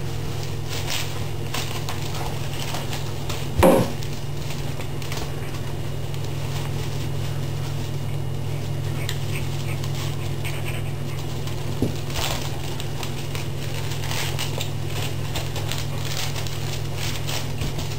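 Kitchen broom bristles and a raccoon's claws scratching and rustling on a tiled floor as the raccoon wrestles the broom head, in scattered short scrapes, with one louder knock about four seconds in. A steady low hum runs underneath.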